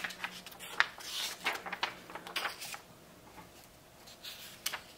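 Magazine pages being turned by hand: paper rustling and sliding, with a sharp tick about a second in and another near the end.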